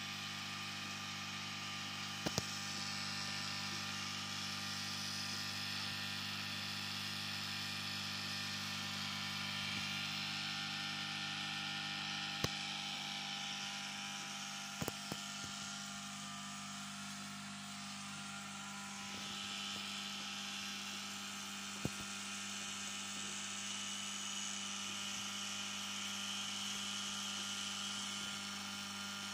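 Aquarium pump humming steadily, with a hiss of water and bubbles over it and a few sharp clicks.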